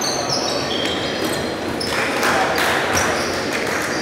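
Basketball being played on a hardwood court: rubber-soled sneakers squeaking in short, high chirps, the ball bouncing, and players' voices mixed in.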